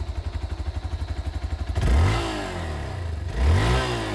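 Hero Xpulse 200 4V's 200cc single-cylinder engine idling with an even, rapid thump, then blipped twice, the note rising with each rev and falling back to idle.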